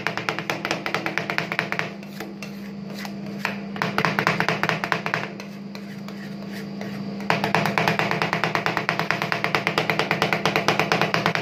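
Two metal spatulas chopping ice cream on a frozen steel ice-cream-roll plate: a rapid, steady clatter of metal clicks, easing off twice for a second or two, about two seconds in and again at about five seconds. A steady low hum runs underneath.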